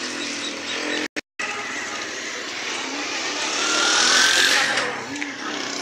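Outdoor traffic noise, with a motor vehicle passing that grows louder to a peak about four seconds in, its engine note rising, then fades. There is a brief dropout just after one second.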